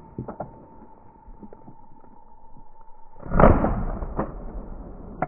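Footsteps and rustling through tall grass, then a sudden loud rushing whoosh about three seconds in that fades over about a second, followed by two sharp clicks.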